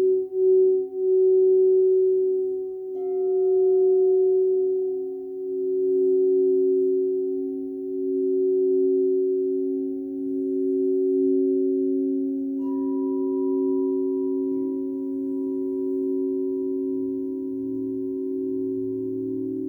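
Crystal singing bowls ringing with two low, sustained tones that swell and fade slowly every two to three seconds. A higher tone joins about two-thirds of the way in.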